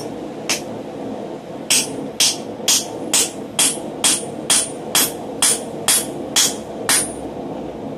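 Blacksmith's hand hammer striking red-hot iron on a steel swage block. One blow, then a steady run of about a dozen ringing blows at roughly two a second. A steady low background noise runs underneath.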